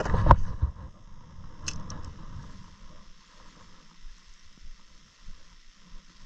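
Handling noise close to the microphone: thumps and rustling in the first second or so, a sharp click a little later, then only faint rustling.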